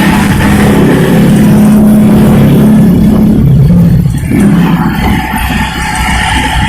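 Sinar Jaya coach bus's diesel engine running hard through a very loud aftermarket 'knalpot setan' exhaust. Its note holds steady, then falls away about three to four seconds in as the revs drop, and settles lower.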